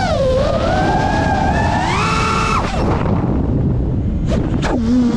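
FPV quadcopter's motors whining, the pitch sliding up and down with the throttle over a constant rush of wind. Near the end two quick sharp rises in pitch come as the throttle is punched, before the motors settle to a low steady whine.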